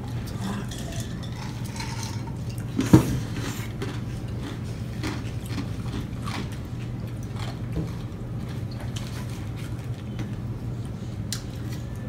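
Close-up eating sounds from two people working through large burgers: chewing, mouth noises and the crinkle of paper burger wrappers, as scattered small clicks over a steady low hum. About three seconds in comes a single sharp knock, the loudest sound.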